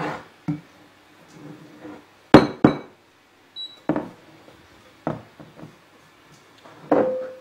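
A heavy glazed ceramic mixing bowl knocking and clunking against a wooden worktop, about seven sharp knocks with the loudest pair about two and a half seconds in. It happens while dough is worked in the bowl and the bowl is tipped over to turn it out. Near the end one knock leaves the bowl ringing briefly.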